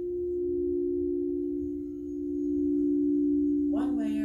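Two frosted quartz crystal singing bowls ringing in a steady, sustained tone of two close pitches, played with a mallet. The sound fades a little about two seconds in, then swells again.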